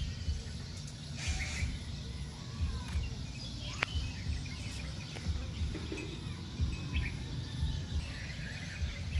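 Faint bird chirps over a low, uneven rumble on the microphone, with a single sharp click almost four seconds in.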